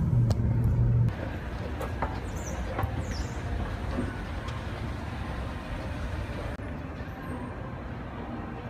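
Steady low drone of a car cabin on the move for about a second, then a sudden cut to quieter, even indoor shopping-mall noise while riding an escalator, with a few light clicks and knocks.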